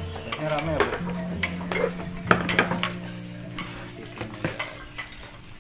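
Crockery, an aluminium pot and a wooden serving tray being set down on a wooden table: a few scattered clinks and knocks of dishes, with a sharper knock about halfway through.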